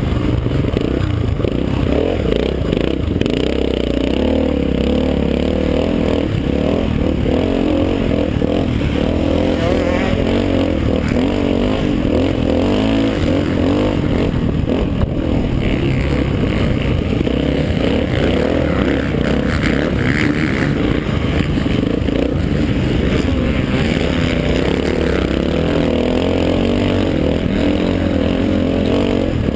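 Honda XR500's single-cylinder four-stroke engine running hard, its pitch rising and falling with throttle and gear changes, under a continuous rush of wind and rumble on a helmet-mounted camera.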